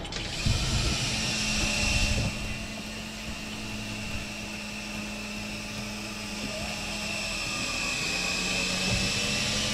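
Steady mechanical drone of a fishing boat's machinery, with a low hum and a thin high whine. It is a little louder in the first two seconds.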